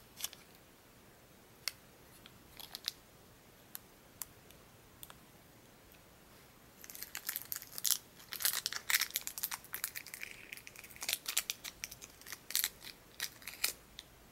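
A few scattered light crackles, then from about seven seconds in a dense run of crinkling: a banana Hi-Chew's wrapper being unwrapped.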